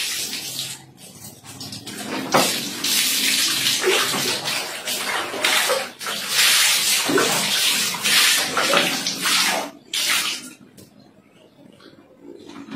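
Water scooped and poured from a plastic dipper, splashing down onto a tiled bathroom floor in several pours one after another, then dying down near the end.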